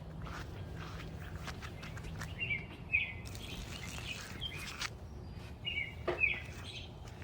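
Small birds chirping in short paired calls over a steady low background rumble, with a rushing hiss for about a second and a half in the middle.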